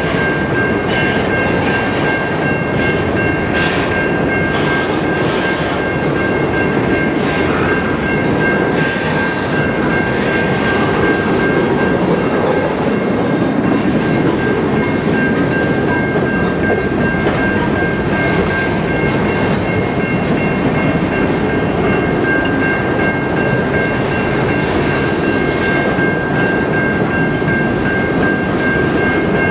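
Covered grain hopper cars of a freight train rolling past close by: a steady rumble of steel wheels on rail with irregular clacks, and a steady high metallic squeal from the running gear.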